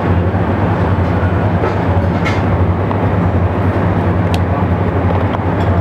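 A steady, loud low hum with a few light clicks about two and four seconds in.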